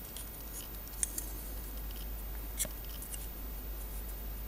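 A few faint clicks and light rustling as a plastic model-kit part is handled in the fingers, over a steady low electrical hum.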